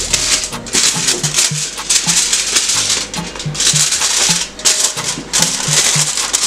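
Background music with a steady beat: short bass notes and a shaker.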